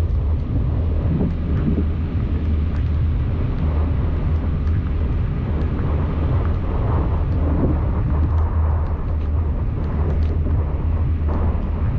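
Car driving in the rain: a steady low rumble of engine and tyres on the road, with scattered light ticks of raindrops.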